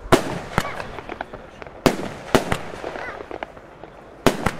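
Röder 'Blinkermeer' firework shooting shots into the air: a sharp bang just at the start, two more about two seconds in, and a close pair near the end, with smaller pops from bursting stars between them.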